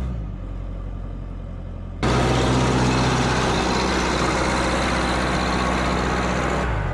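Backhoe loader engine running steadily. About two seconds in, a much louder, harsher rushing noise cuts in over the engine and drops away just as suddenly near the end.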